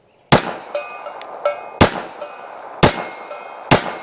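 Four shots from a Beretta 3032 Tomcat .32 ACP pocket pistol, about a second apart. Each shot is followed by the ringing clang of a steel target being hit.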